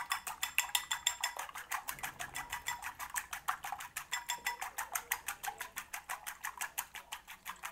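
Three wooden chopsticks beating egg in a ceramic bowl, a rapid, even clicking of about eight or nine strokes a second as the tips knock the bowl.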